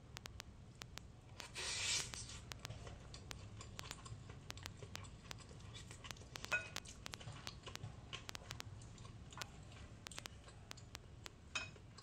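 Faint clicks and scrapes of chopsticks and a wooden spoon against a ceramic bowl of rice and beef, with a brief scrape about two seconds in and sharper taps around six and a half seconds and near the end.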